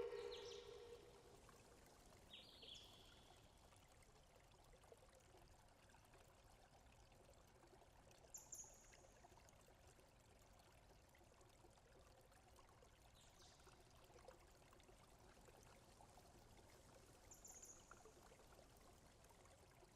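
Near silence: a faint steady hiss of background noise, with a few faint, brief high chirps spread through it. A short tone fades out right at the start.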